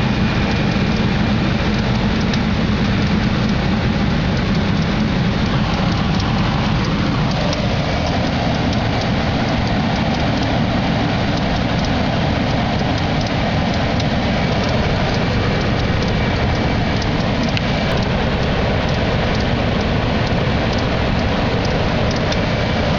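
1991 Chevrolet Astro van engine running steadily just after start-up, heard close from the engine bay, with a change in its low sound about seven seconds in.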